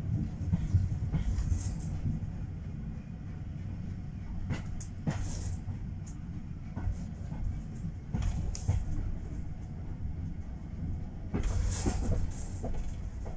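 Inside a heritage railway carriage on the move: the steady low rumble of the coach running along the track, with a few sharp clicks and knocks from the wheels and bodywork, the loudest cluster near the end.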